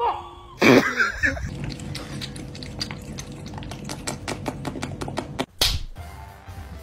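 A cat lapping water from a small drinking glass: a quick, even run of small wet clicks, several a second, lasting a few seconds.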